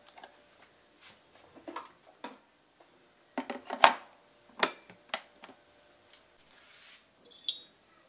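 Clicks and knocks of kitchen things being handled while making coffee: a string of short sharp taps, the loudest about four seconds in, and a brief ringing clink near the end.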